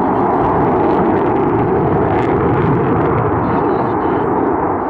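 Loud, steady jet engine noise from a twin-engine jet fighter manoeuvring overhead during an aerobatic display.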